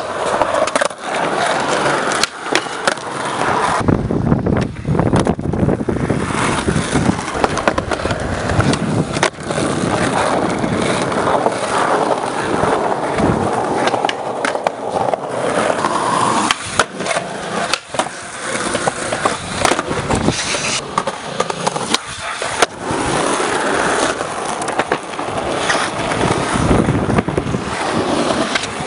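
Skateboard wheels rolling on concrete, with many sharp clacks of the board popping, hitting ledges and landing tricks.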